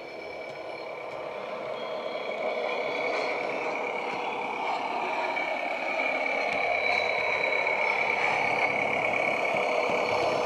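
Recorded diesel railbus engine sound from a Roads and Rails sound file on an ESU LokSound 5 decoder, played through a small speaker inside a Heljan model railbus as it runs along the track. It grows louder over the first few seconds as the model approaches, then holds steady.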